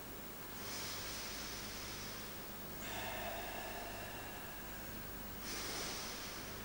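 Forceful, controlled karate breathing with the slow, tensed techniques of the Shotokan kata Hangetsu: three long hissing breaths, each lasting one to two seconds, starting about a second in, near three seconds and near five and a half seconds.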